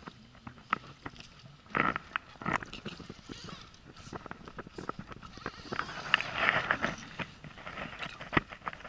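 Handling noise of a rod and baitcasting reel on an inflatable boat: irregular clicks and knocks, with a stretch of rushing noise about six seconds in.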